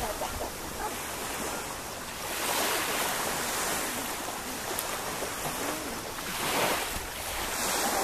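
Small sea waves washing onto a sandy beach, the wash swelling twice, with wind rumbling on the microphone.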